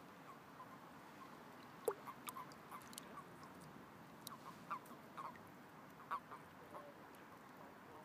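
Frogs in a breeding pond giving many short, faint croaking calls, scattered unevenly, with a sharp click about two seconds in and a few louder croaks near five and six seconds.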